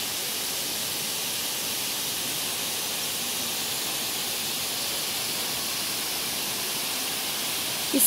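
Ng Tung Chai's Main Fall, a tall waterfall pouring down a rock face, making a steady, even rush of falling water.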